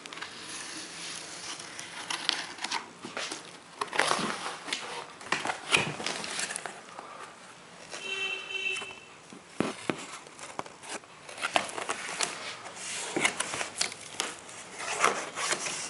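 Packaging being handled and unwrapped: irregular crinkling and rustling with short sharp crackles, and a brief squeak about eight seconds in.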